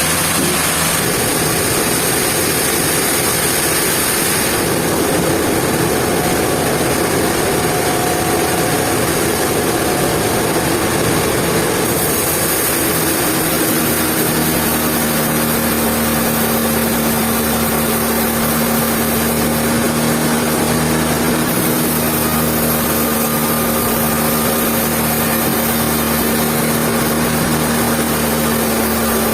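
Sawmill machinery running steadily: a loud, dense mechanical noise, with a steady hum that settles in about halfway through.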